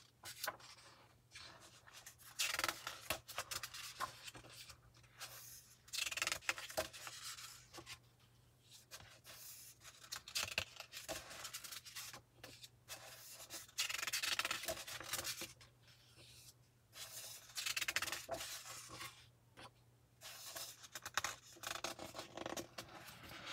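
Magazine pages being turned by hand, one after another: a paper rustle and swish about every three to four seconds, with quiet gaps in between.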